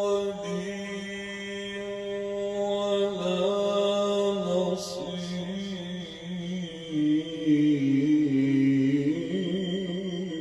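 A man's voice reciting the Qur'an in a drawn-out melodic chant, holding long notes, sinking lower about seven seconds in and rising again near the end.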